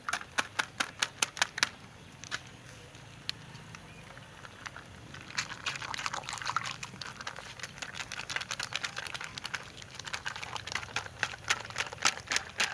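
A spoon clicking and tapping against a bowl as satay paste is added and mixed into a marinade: quick taps about three a second at first, then a few lone ticks, then a denser run of clicks from about halfway.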